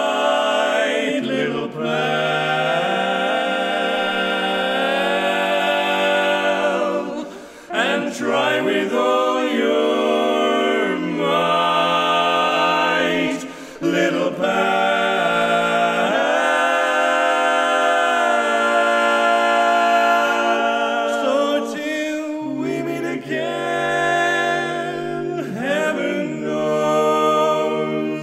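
Barbershop quartet singing a cappella in close four-part harmony, holding long sustained chords, with brief pauses between phrases about seven and a half and thirteen and a half seconds in.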